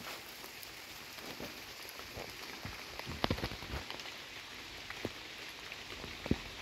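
Steady rain pattering, with scattered sharper taps of drops; a small cluster of louder taps comes about three seconds in and a single loud one near the end.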